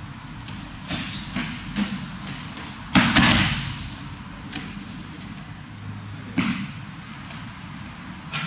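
Aikido breakfall on the mat: a few quick footfalls, then a loud thud and slap of a body landing on the mat about three seconds in, with cotton gi rustling after it, and a second sharper thump on the mat about three and a half seconds later.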